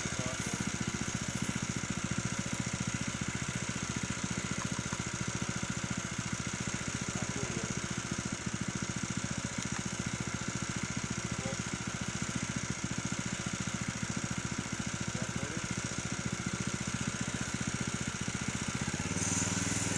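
Small engine of a model-glider tow winch idling steadily with a fast even beat, starting to rev up just before the end.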